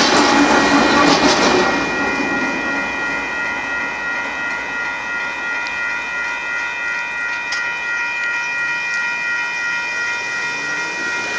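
Tail end of a freight train rolling away over a grade crossing, its wheel noise dying down about two seconds in. A railroad crossing warning bell rings steadily throughout.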